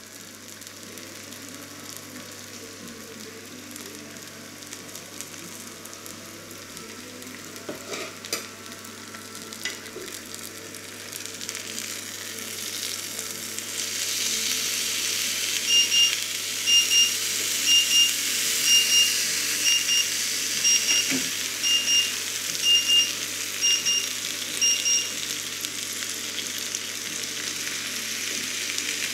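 Herb-coated meat cutlets sizzling on a cast-iron grill pan, the sizzle growing louder about halfway through once they have been turned with metal tongs. In the second half a high electronic beep sounds about once a second, around ten times.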